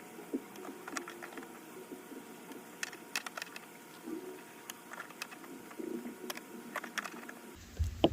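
Light, irregular clicks and taps of a 7/16 wrench on the small nut holding a C5 Corvette's side marker lamp, some coming in short runs, as the nut is worked loose.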